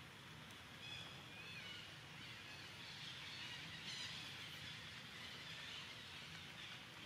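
Faint forest ambience: a steady high hiss with a few short, high, gliding chirps about a second in.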